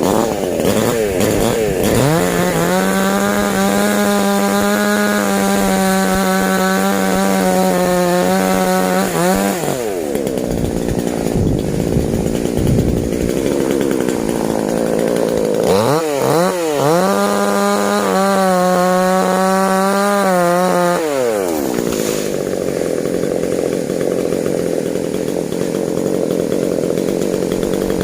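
Daiho DCS 5800 Pro two-stroke chainsaw running, revved up to full throttle twice, holding a steady high whine for several seconds each time, then dropping back to a lower, rougher running in between and near the end.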